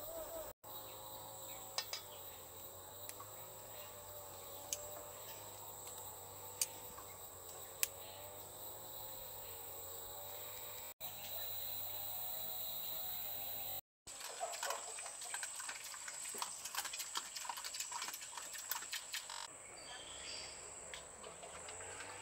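Outdoor ambience with a steady high insect drone, with many sharp clicks and light knocks in the second half.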